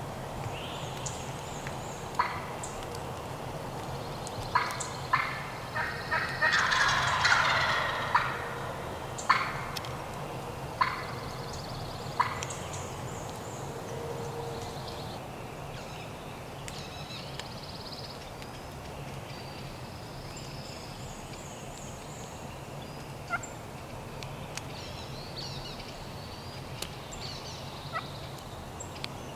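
Wild turkey gobbling several times in the first half, the loudest and longest gobble about seven seconds in, followed by fainter scattered calls.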